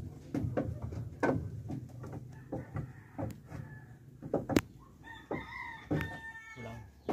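Irregular knocks and taps from work on the wooden boat plank and its clamps, the sharpest about four and a half seconds in. About five seconds in, a rooster crows for roughly two seconds.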